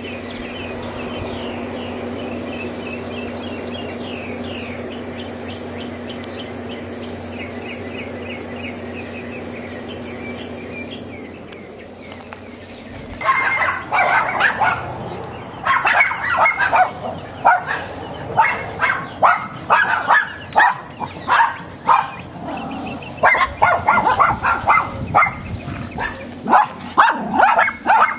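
A steady hum with small birds chirping, then from about halfway the neighbour's dogs barking loudly and repeatedly, about one to two barks a second.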